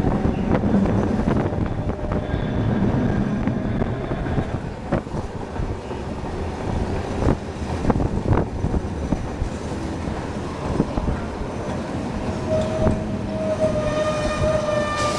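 St. Charles streetcar rolling along its track: a steady low rumble with occasional sharp clacks from the wheels. A sustained high tone that holds its pitch comes in near the end.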